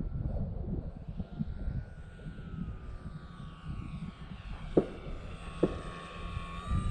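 Electric motor and propeller of an E-flite T-28 RC plane whining in flight, the pitch sliding down and then climbing again near the end, over low gusty wind noise. Two sharp clicks come in the second half.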